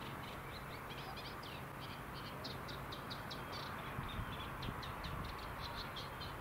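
Small songbird chirping: quick series of short, high notes, thickest in the middle. Under it are steady outdoor background noise and a faint low hum.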